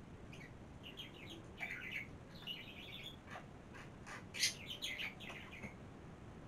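Birds chirping: a run of short, high chirps over several seconds, loudest about four and a half seconds in.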